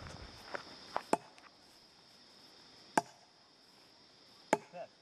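Wood being chopped: a few sharp, irregular blows, the two loudest about three and four and a half seconds in, over a steady high drone of night insects.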